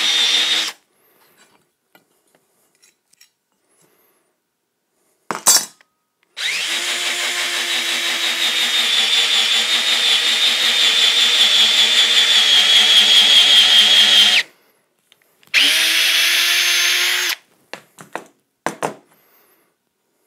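Cordless drill boring an angled hole into a wooden block, the motor running with a steady whine in bursts: a short burst at the start, one long run of about eight seconds, then a shorter burst, with a few sharp clicks between runs.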